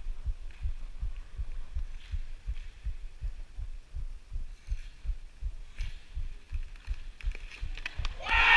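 Steady low thumps, about three a second, of a referee's footsteps jarring a body-worn camera as he moves around the floorball court.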